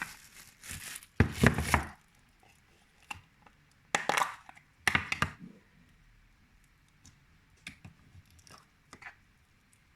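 Hands handling slime and its plastic containers: a few short noisy bursts about a second in and again around four and five seconds, then scattered small clicks near the end.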